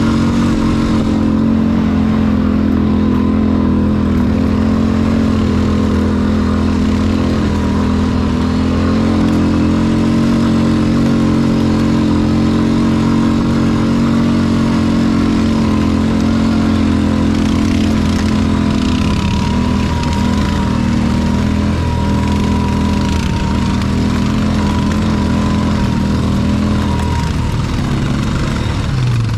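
ATV engine running at a steady, even pitch while the quad is ridden.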